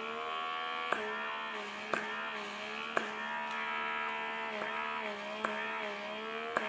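Appolus blackhead-remover vacuum running against the skin of the nose: a small electric motor's steady buzz whose pitch wavers slightly as the suction takes hold, with a sharp click about once a second.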